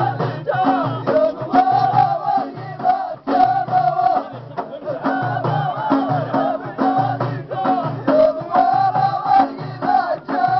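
A line of men chanting together in an Amazigh traditional song, their voices rising and falling as one, over frame drums beaten in a steady rhythm.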